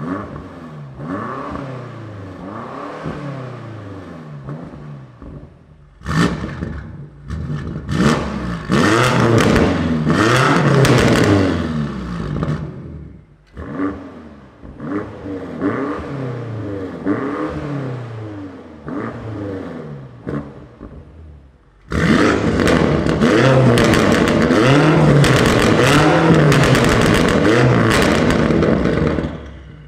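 BMW F90 M5's S63 twin-turbo V8 exhaust being revved repeatedly while stationary, the pitch rising and falling with each rev. It is fairly quiet in stock form in Efficient mode, louder from about six seconds in once Sport+ is selected, and loudest near the end with catless downpipes, a non-resonated Remus midpipe and a Stage 2 tune.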